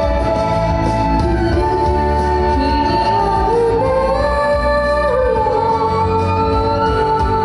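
Live J-pop idol music: a female singer holding and sliding between long notes over a live band, with the instruments prominent in the mix.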